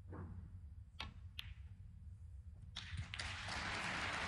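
Snooker shot: a soft tap of the cue tip on the cue ball, then sharp clicks of the balls striking about a second in, and a few more knocks around three seconds as a red is potted. A steady rush of noise comes in near the end.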